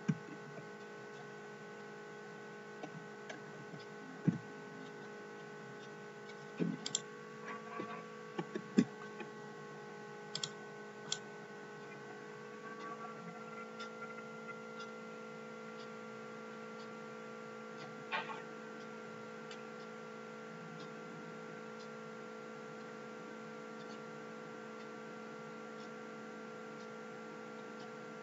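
Steady low electrical hum with several constant tones, the background of a screen-recording microphone. Scattered keyboard keystrokes and mouse clicks sound over it during the first two-thirds, then only the hum remains.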